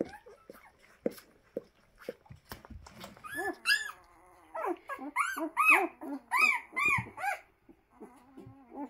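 Two-week-old Doberman puppies squeaking: a run of about ten short, high whines that rise and fall, starting about three seconds in. Before that come soft suckling smacks and clicks.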